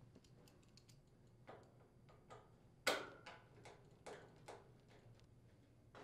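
Faint, irregular clicks and ticks of a nut driver and screws against the range's sheet-metal rear access panel as the panel screws are driven in, with one sharper clack about three seconds in.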